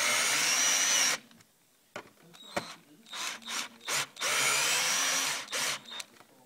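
Cordless drill-driver driving screws through an SNS binding housing into an aluminium roller ski, running in bursts: a burst of about a second at the start, a few short pulses, then a longer burst of about a second and a half past the middle.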